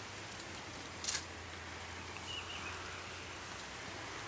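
Outdoor riverside ambience: a steady low hum and hiss with a few faint, high bird chirps. A short scratchy noise comes about a second in.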